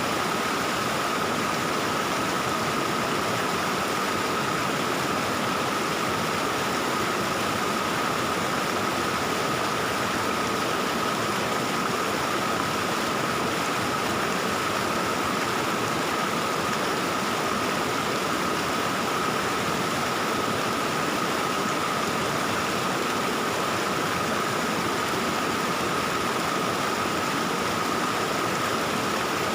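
Valley stream water flowing and babbling steadily, an even, unbroken rush.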